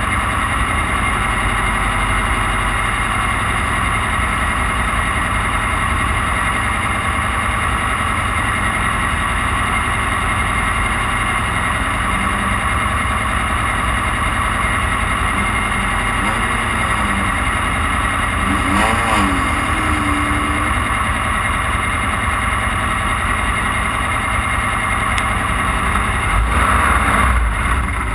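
Off-road race car's engine running hard and steady at speed, with a dense wash of road and wind noise. Its pitch briefly swings up and down twice, about two-thirds of the way through and near the end.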